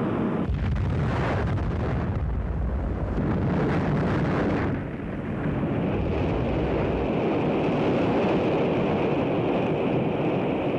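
Atlas-Centaur rocket exploding in flight: a long, deep, noisy rumble of the blast. It eases briefly about five seconds in, then swells again.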